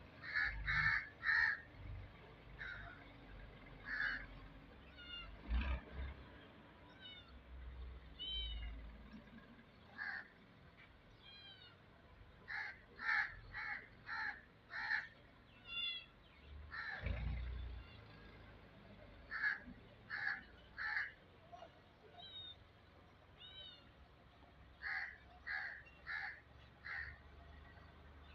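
Birds calling: short calls repeated in runs of three to five, several times over, with smaller birds chirping in between and a couple of low thumps.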